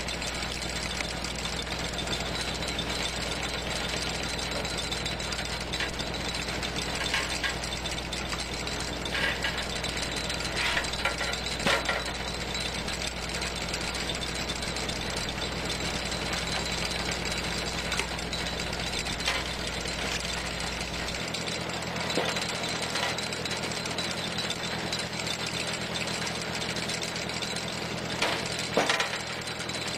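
Tractor engine running steadily, turning a PTO-driven cone screw log splitter as the screw bores into a wet ash log. A few sharp cracks sound as the wood splits, the loudest near the end.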